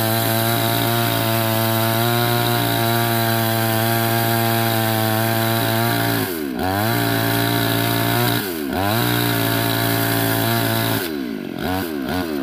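Bull petrol chainsaw running at high revs while cutting wood. Its pitch drops sharply and recovers about six and a half seconds in, again about two seconds later, and a few times more near the end.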